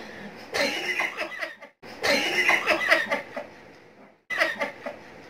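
Two people laughing together in three bursts of choppy, breathy laughter, with short breaks between.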